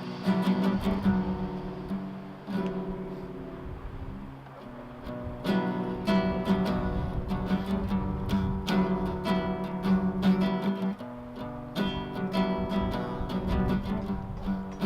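Acoustic guitar strumming chords in a song's instrumental introduction. It starts with a ringing chord that softens for a few seconds, then strumming picks up in a steady rhythm about five seconds in.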